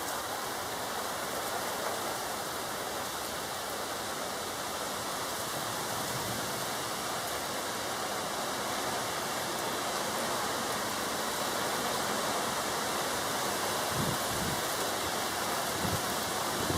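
Steady rushing noise of a severe thunderstorm's strong wind and rain, swelling slightly, with a couple of low thumps near the end.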